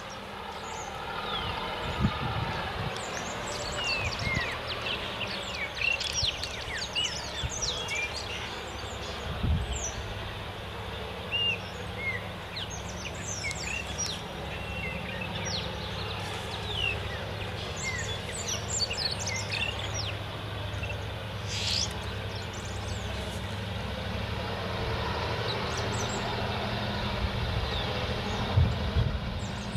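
Diesel freight locomotive engine running steadily as the train approaches, slowly getting louder, with many birds chirping over it and a few low thumps.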